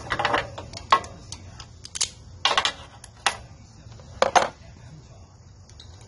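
Hand tools clinking and scraping on metal as locking pliers and a wrench work the rocker-arm adjuster nut of a small engine's valve, setting the valve clearance. A series of sharp metallic clicks and short scrapes, irregular, ending a little after four seconds in.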